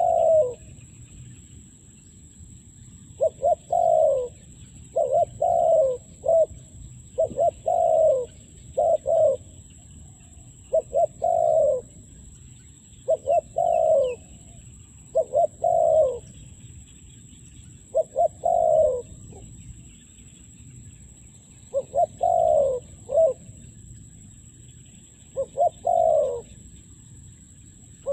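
Spotted dove cooing: about ten phrases of two or three short falling coos, repeated every two to three seconds. Faint chirps of small birds sound above it.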